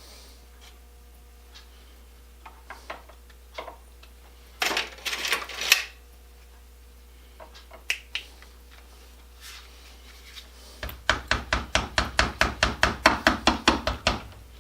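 Hand wire brush scrubbing the broken thread ends of a steel C-clamp, finishing in a run of quick rhythmic strokes at about six a second, with scattered clinks and knocks of the metal pieces being handled before it.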